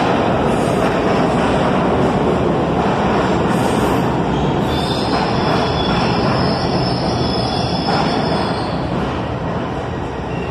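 New York City subway train of R62 cars running into the station, with a steady heavy rumble of wheels on rail. From about four and a half seconds to nine seconds in, a high steady wheel squeal rides over it as the train slows.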